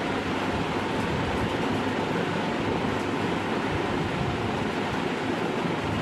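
A steady, even rushing noise that holds at one level throughout, with no speech or music.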